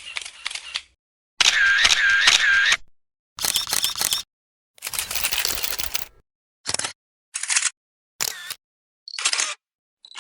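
A string of different camera shutter click sound effects, each separated by a brief silence. Longer bursts of rapid repeated shutter clicks come first, including a run of three alike about two seconds in. Shorter single clicks follow in the second half.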